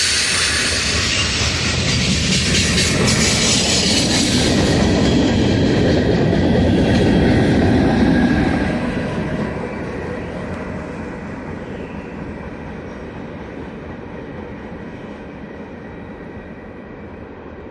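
Freight train of covered hopper cars rolling past on a curve, wheels clattering over the rail joints with some flange squeal. The last car goes by about halfway through and the sound fades as the train pulls away around the bend.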